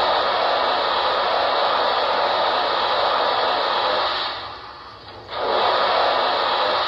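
Lionel Legacy brass hybrid 4-4-0 model steam locomotive's onboard sound system playing its blowdown effect: a loud steam hiss about four seconds long that fades out, then a second hiss starting about a second later.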